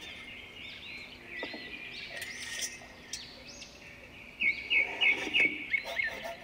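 Woodland birds singing, with many short arching chirps and a loud run of quick repeated notes about four and a half seconds in. A few faint knocks are heard under the birdsong.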